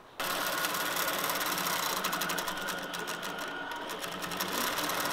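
Innova longarm quilting machine starting up and stitching steadily. It cuts in suddenly a fraction of a second in, then runs as a fast, even chatter of needle strokes over a steady motor hum.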